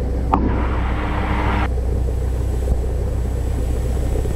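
Cessna Skyhawk's piston engine idling in the cabin, a steady low rumble. A band of hiss rides over it and cuts off suddenly about a second and a half in.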